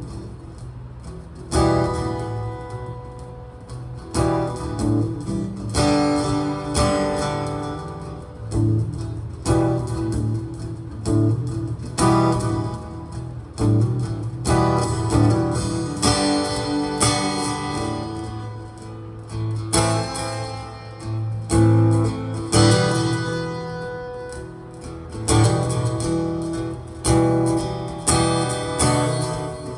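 Fender Hellcat acoustic guitar being strummed, chords struck every second or two and left ringing.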